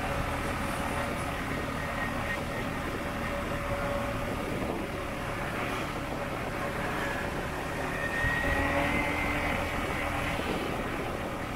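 Motorbike riding through city traffic: the engine running steadily under wind and road noise, with a faint steady whine, and a brief higher-pitched tone about eight seconds in.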